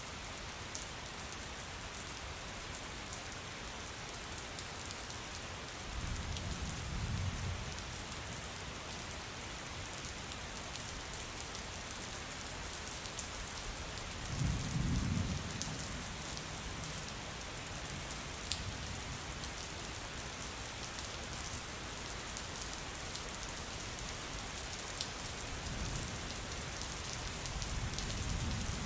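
Steady rain with fine pattering drops, broken three times by low rumbles of distant thunder, the strongest about halfway through.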